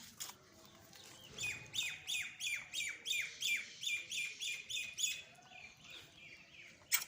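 A bird calling a fast series of about a dozen short, high notes, each falling in pitch, at about three a second, then fading, with a sharp click near the end.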